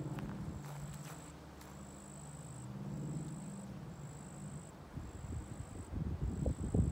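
An insect trilling high and steady in repeated trills about a second long, with brief pauses between them. A low drone runs underneath, and over the last two seconds footsteps crunch on the woodland trail, louder than the trilling.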